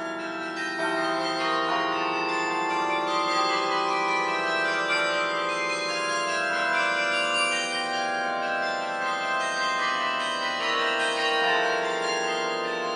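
A 51-bell carillon playing music, with many bell tones ringing on and overlapping into a continuous sound.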